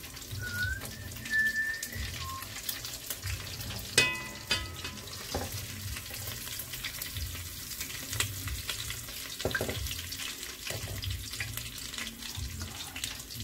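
Battered chicken frying in a deep pot of hot oil, sizzling steadily while a fork turns it. About four seconds in there is one sharp clank with a short ring.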